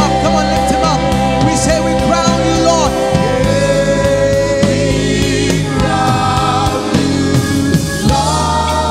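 Worship music: voices singing long held notes, with a slight waver, over steady sustained chords.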